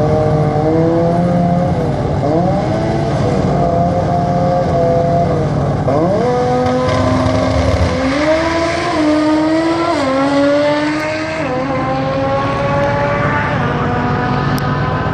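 Turbocharged drag-racing engines, one of them a 13B turbo rotary in a Mazda RX3, revving at the start line with repeated sharp rises and drops in pitch, then pulling away hard down the strip with pitch climbing in steps through the gears.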